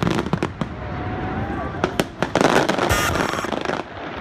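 Fireworks display: a quick run of bangs from bursting aerial shells that thins out after the first second, followed by a dense crackling spell in the second half as glittering stars burst.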